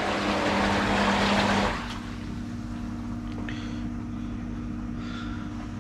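Water splashing into a Platinum Spas hot tub over the steady hum of its pumps. The splashing drops away about a second and a half in, leaving the pump hum on its own.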